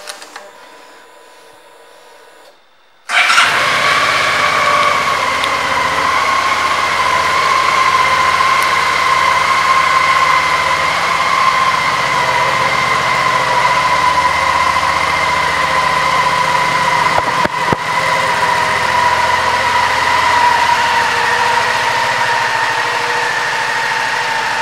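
Suzuki V-Strom 650's 645 cc V-twin engine catching about three seconds in, then idling steadily, its pitch sagging slightly near the end.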